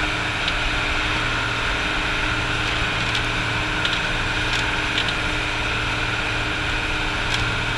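Steady drone of an outrigger fishing boat's engine running while underway, even in level and pitch, with a few light clicks around the middle.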